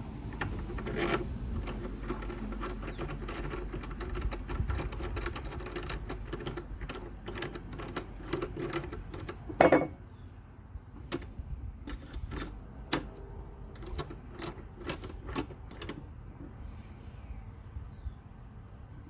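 Metal clamp parts of a mower-blade sharpener being handled and a threaded clamp screw turned: rubbing and scraping for about ten seconds, a loud clack about halfway through, then scattered light clicks and taps. Crickets chirp steadily in the background.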